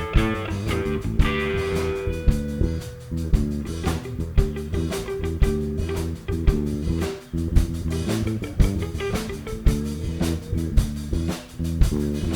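Background rock music with electric guitar and drums keeping a steady beat.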